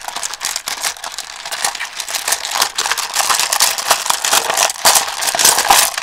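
Stones and crystals rattling and clacking against each other and the sides of a plastic tub as a hand rummages through them, a steady stream of clicks.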